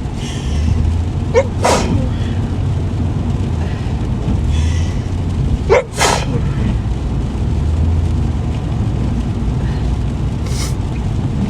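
A woman sneezing twice, about four seconds apart, each sneeze a short pitched intake and then a sharp burst. Under it is the steady low rumble of a car driving in the rain, heard from inside the cabin.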